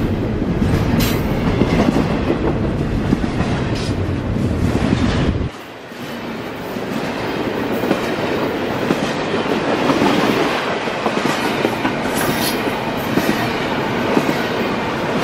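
CSX double-stack intermodal freight train's container well cars rolling past, a steady loud noise of wheels on rail. About five seconds in, the deep rumble drops away suddenly, leaving the higher rolling noise.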